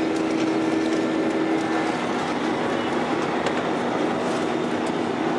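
Airbus A320-200 cabin noise at a window seat in flight: a steady rush of air and jet engine drone, with a steady hum that steps lower in pitch about two seconds in.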